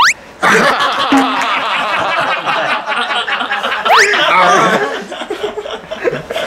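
People laughing and snickering together, with two quick rising whistle-like sound effects, one at the very start and one about four seconds in.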